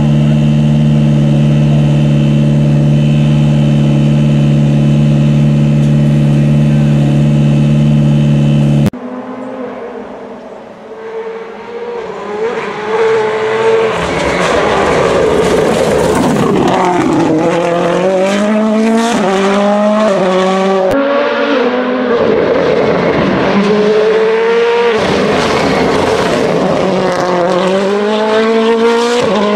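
An engine idling steadily, then, after a sudden cut, a Toyota Yaris WRC rally car approaching and passing at full speed. Its engine revs hard in repeated rising steps with quick gear changes and lifts into the corners.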